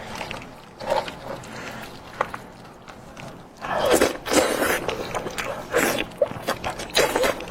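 Close-miked eating of a spicy goat head: a few light clicks, then from about four seconds in, loud irregular bursts of biting, chewing and wet smacking.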